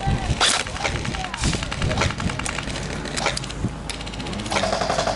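Airsoft electric guns firing in rapid full-auto bursts, a fast even rattle of clicks with a few sharper cracks. A steady pitched tone comes in near the end.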